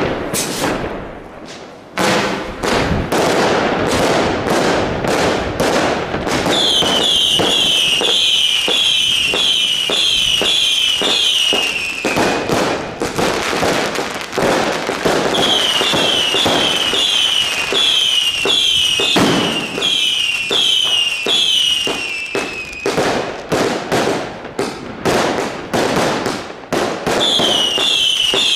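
Aerial fireworks going off in quick succession: a dense run of sharp bangs and crackles that starts about two seconds in. Over it come repeated falling whistles from whistling shells, about two a second, in three runs of several seconds each.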